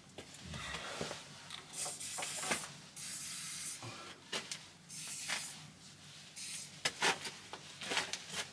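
An aerosol spray can being sprayed at the car's underside in several short hissing bursts, the longest about a second.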